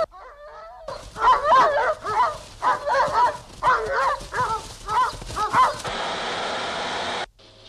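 Dogs barking in a rapid run, about eight barks over five seconds. Then about a second of harsh rushing noise that cuts off suddenly near the end.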